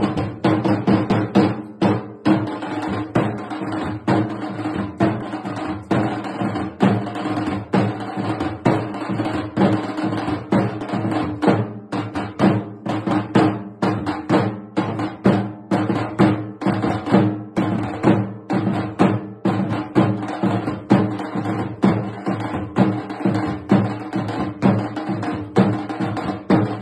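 Large barrel drums and a smaller side drum, beaten with sticks by a group of drummers in a steady rhythm of rapid, evenly repeated strikes.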